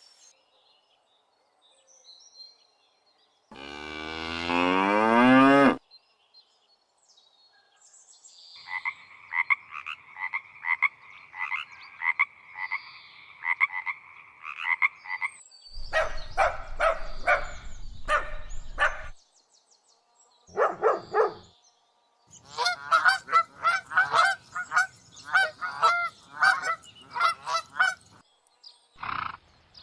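A run of separate farm animal calls. A single loud call rises in pitch about four seconds in. A long stretch of calls follows, repeated about twice a second, and near the end come clusters of rapid repeated calls.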